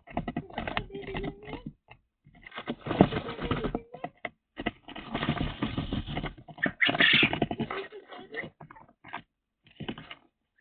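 Irregular bursts of rustling and scratching, with clicks, from pet birds moving about or being handled in their cage.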